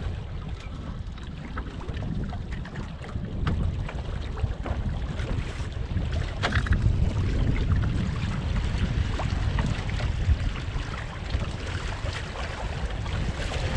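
Wind buffeting the microphone on a small sailboat under sail, with water splashing and slapping against the hull.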